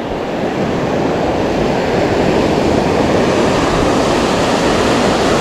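Steady rushing of ocean surf washing over a rocky reef shoreline, growing slightly louder about a second in.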